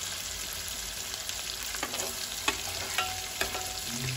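Big pieces of masala-coated fish shallow-frying in oil in a pan: a steady sizzle, with several sharp ticks in the second half.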